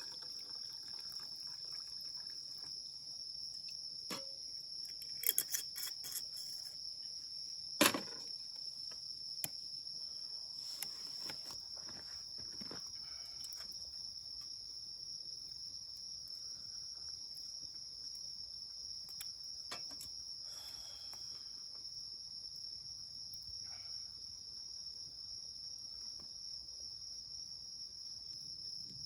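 Insects, likely crickets, trilling in one steady, unbroken high-pitched tone, with a few short clicks and knocks scattered through it, the loudest about eight seconds in.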